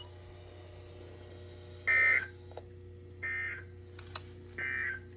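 Three short buzzing bursts of Emergency Alert System SAME data tones, each about a third of a second and roughly 1.3 seconds apart: the End of Message code that closes an EAS alert. A sharp click falls between the second and third burst, over a faint steady hum.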